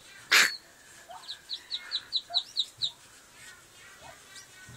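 Muscovy ducklings peeping: a quick run of about nine short, high peeps, roughly five a second, then a few fainter calls. A brief loud, noisy burst comes about half a second in, before the peeps.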